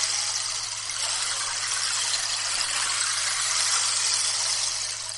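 Handmade egg-shaped rainstick (the Sea Egg) tipped so its loose filling pours inside in a continuous wave-like rush, easing off near the end.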